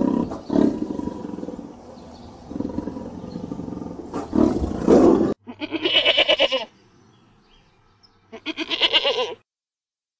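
A tiger growls low for about five seconds, loudest at the start and again near the five-second mark. It stops abruptly and a goat bleats twice, two short, wavering bleats a couple of seconds apart.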